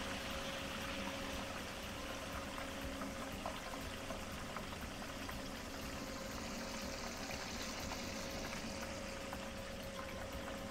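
Breaded chicken drumsticks deep-frying in hot oil in a steel pan: a steady bubbling sizzle with scattered small crackles.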